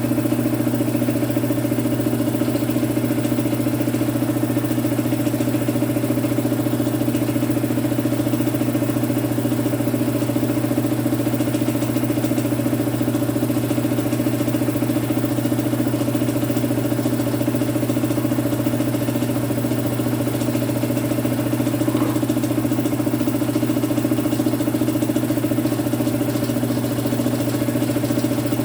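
Electric compressor motor running steadily: an even hum with a fine, rapid pulsing, unbroken throughout, with one faint tick near the end.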